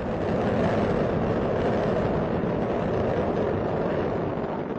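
Space Shuttle Discovery's two solid rocket boosters and three main engines during ascent: a steady, dense rush of rocket exhaust noise.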